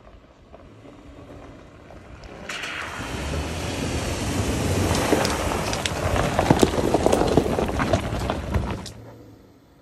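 Subaru Forester Wilderness driving through a deep puddle on a gravel track: water splashing and spraying, with crunching and clicks from the tyres and a low engine rumble under it. The noise builds up about two and a half seconds in, is loudest as the car comes close, and cuts off sharply about nine seconds in.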